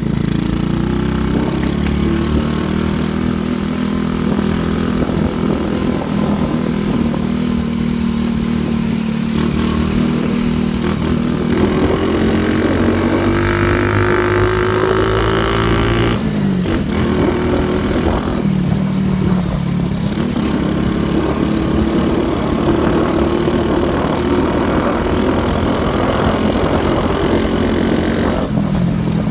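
Motorcycle engine running under way, its pitch climbing as it accelerates through the middle and dropping sharply about halfway through, as at a gear change, before rising again.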